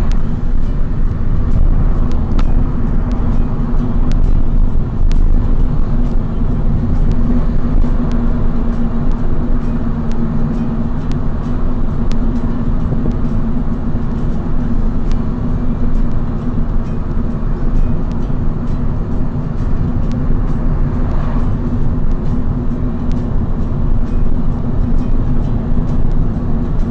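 Steady engine and road noise heard from inside a moving car's cabin: a continuous low rumble with a constant hum running under it.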